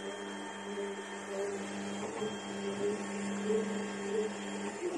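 SUNLU S9 Plus FDM 3D printer's stepper motors whining in short, shifting tones as the print head travels, over a steady low hum, as the machine begins its automatic bed leveling.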